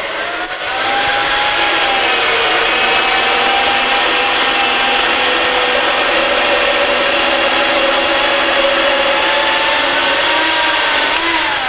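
Hemsaw NG120XL portable metal-cutting bandsaw starting up and running steadily as its blade cuts dry through a rusty round steel bar: a steady motor whine over a hiss. Near the end the whine rises briefly and then falls away.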